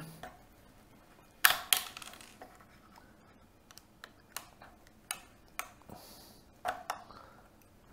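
Small flat-blade screwdriver prying at the plastic clips of a Panasonic WEG15929 universal outlet housing. It gives two sharp plastic clicks about a second and a half in, then a few softer scattered ticks and scrapes.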